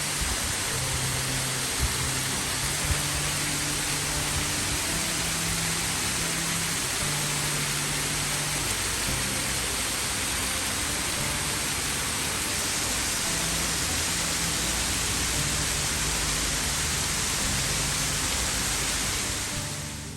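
A steady, loud rushing hiss, with soft low music notes underneath; it fades away near the end.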